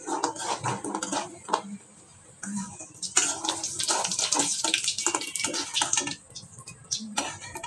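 Rice-flour chips frying in hot oil in a wok, sizzling, with metal tongs, a wire spider strainer and a spatula clinking and scraping against the wok as the chips are turned and lifted out. The sizzling grows denser from about three seconds in, when the strainer goes into the oil.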